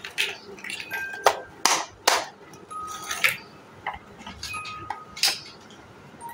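Large hollow plastic building blocks clacking and knocking together as they are pressed onto one another: a run of irregular sharp knocks, the loudest three in quick succession between one and two seconds in.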